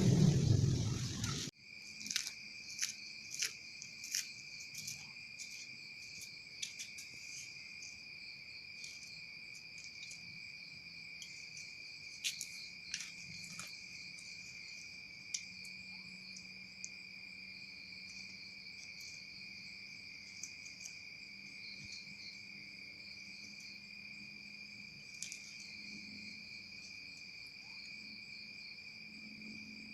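Steady insect chorus, a continuous high-pitched trill, with scattered faint clicks. A louder noise cuts off abruptly about a second and a half in.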